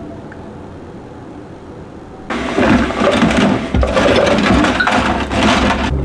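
Quiet room tone, then about two seconds in a sudden switch to loud splashing and sloshing of water as dishes are washed by hand in a stainless steel kitchen sink.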